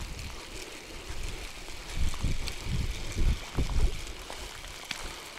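River water running over a shallow riffle, a steady rushing hiss, with a few low rumbles about two to four seconds in.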